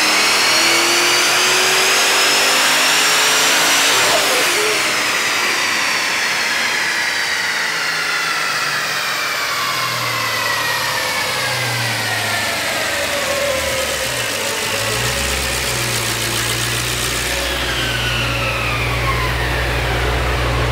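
Twin-turbocharged Holden VE SS-V V8 on a chassis dyno, revving up under full load for about four seconds, then coming off the throttle. The engine note then falls in a long slow glide as the car coasts down on the rollers, settling into a low steady drone near the end.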